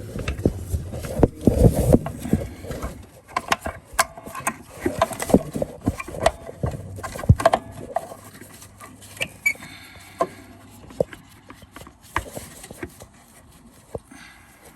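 Irregular clicks and small metal knocks from hands working at the blade-brake spring and linkage under a Toro TimeMaster mower, trying to unhook the spring. The clicks come thick for the first half and thin out toward the end.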